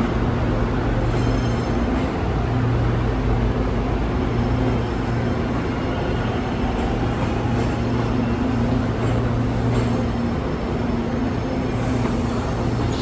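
Steady electrical hum and low rumble of a Seoul Subway Line 1 train standing at the station platform, with a few faint clicks over it.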